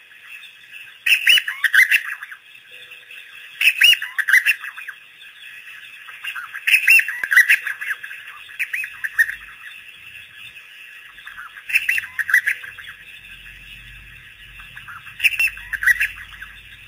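African wild dogs twittering: five short bursts of high-pitched, bird-like chirps and squeaks, a few seconds apart. This is the pack's social twittering call.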